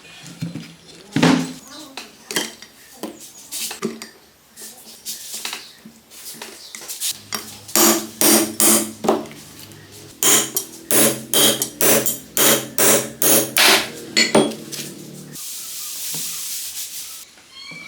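Metal tools striking and knocking on metal engine parts, with a fast run of even hammer blows in the middle over a low ringing. A short hiss comes near the end.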